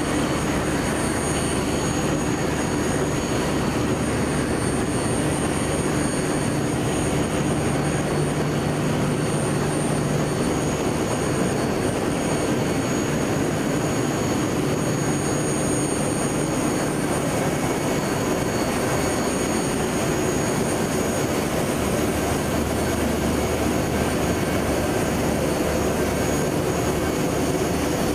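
Adult pants (disposable diaper) production machine running at speed: a steady mechanical roar of its rollers, drives and fans, with a low hum and faint high whines held constant.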